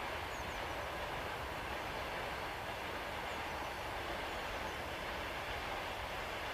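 Train running: a steady, even rushing noise of wheels on rails.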